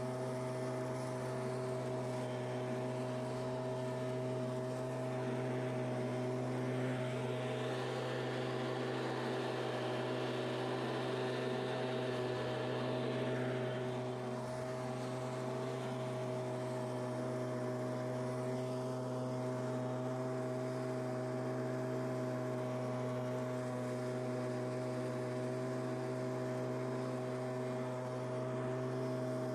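Stihl handheld two-stroke leaf blower running steadily at an even speed. A rush of blown air and leaves grows louder for several seconds around the middle.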